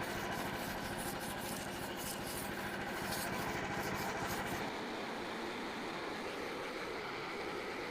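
Wire brush scrubbing dirt off the bark of a maple log in quick, scratchy strokes, with a small engine running steadily underneath. The brushing stops about two-thirds of the way through, and the engine keeps running.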